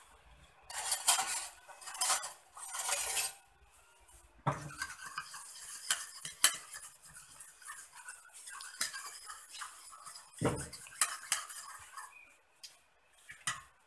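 Metal utensil scraping and clinking against a steel cooking pot while biryani layers are spread in it, with several sharp clinks from about four seconds in.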